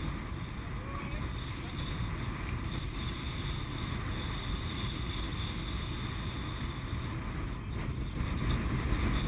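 Wind buffeting the camera's microphone on an open boat deck: a steady low rumble, a little louder near the end.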